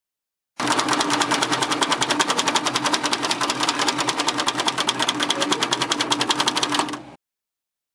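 A rapid, even mechanical clatter of about a dozen strokes a second, like a small machine running at steady speed. It starts suddenly and cuts off abruptly near the end.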